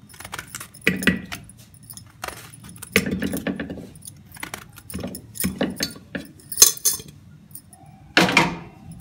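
Irregular metallic clinks and knocks, about one a second, as a small knife cuts bitter gourd (karela) into an aluminium pressure cooker, the blade and falling chunks striking the pot. A louder clatter comes near the end.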